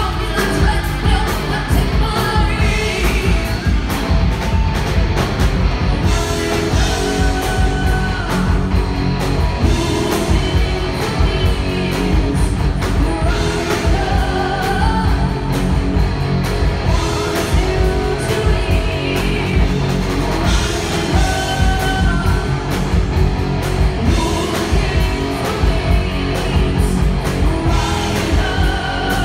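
Live heavy metal band playing: a female lead singer sings over distorted electric guitars, bass guitar and a drum kit, loud and without a break.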